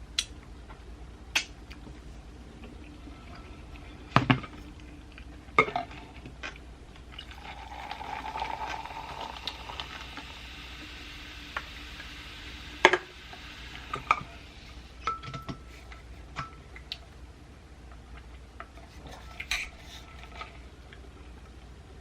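Handling and eating sounds at a table during a sandwich mukbang: scattered sharp clicks and knocks, with a longer rustle of wrapper or bag from about 7 to 11 seconds in.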